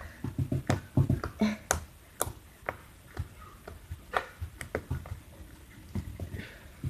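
Hands squeezing and pressing slime with beads in it, making irregular sticky pops and clicks with soft squishes between them.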